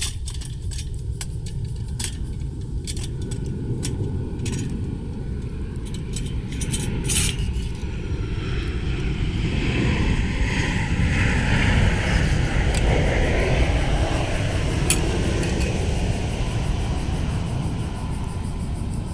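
Firewood burning in a small stainless steel fire stove, with sharp crackling clicks scattered through the first half. Under it runs a steady low rumble, and a hiss swells in the middle and then fades.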